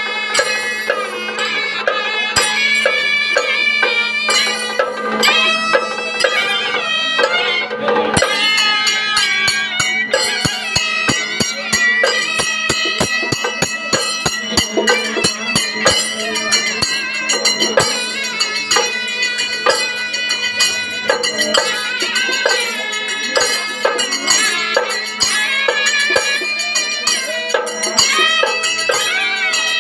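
Traditional Indian folk music: a held, ornamented melody over a steady drone. From about ten seconds in, a beat of sharp percussion strikes joins it.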